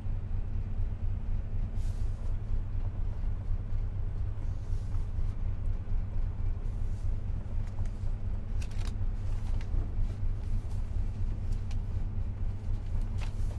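Steady low rumble of a ship's running machinery. A few short paper rustles come as manual pages are handled, the clearest about nine seconds in and near the end.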